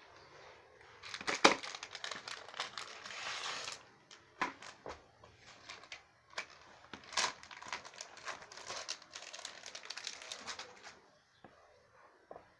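Plastic wrapping of a poster package being torn open, crinkling with many sharp crackles; it quietens about a second and a half before the end.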